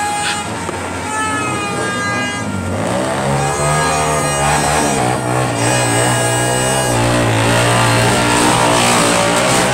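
Loud street din: a horn-like toot in the first couple of seconds, then a loud, wavering engine-like drone.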